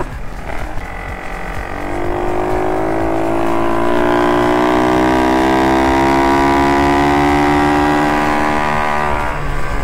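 Minibike engine at high revs heard from the rider's helmet camera, its pitch climbing steadily for several seconds as it accelerates, then easing off near the end, over wind rush.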